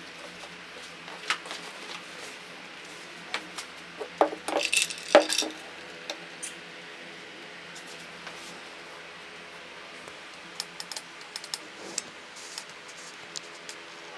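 Glass dish of ice cubes clinking and knocking as it is slid across a table and set down, with the ice rattling against the glass in a short burst about four to five and a half seconds in. A few lighter ticks follow later.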